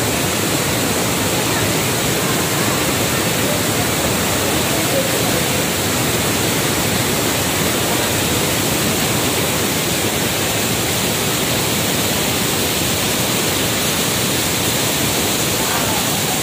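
Waterfall spilling in thin streams and drips over a mossy overhanging rock cliff: a loud, steady, even rush of falling water.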